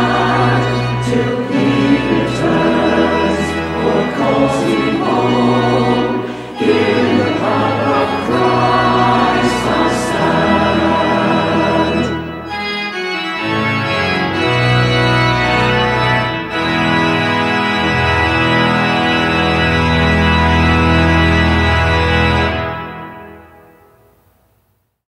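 Choir singing a hymn with church organ accompaniment. The voices end about halfway through, and the organ plays on alone, holding a final chord that fades away near the end.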